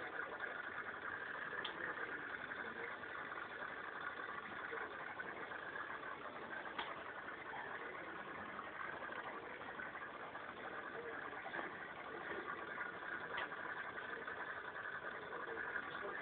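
Steady machine hum with hiss.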